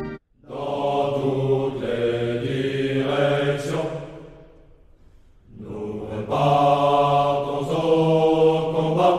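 A choir of men's voices singing a slow chant in chorus: two long, drawn-out phrases with a short pause between them.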